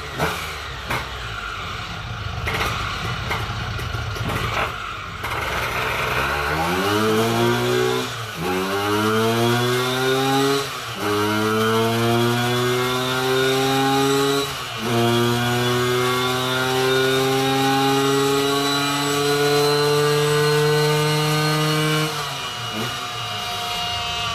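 Scooter engine with a VMC GS125 kit and SIP Road banana expansion-chamber exhaust, on a roller dyno. It runs unevenly at low revs for about six seconds, then goes into a full-throttle pull. The engine note climbs through four gears, with short dips at three gear changes, before the throttle closes a couple of seconds before the end and it falls back to a rough idle.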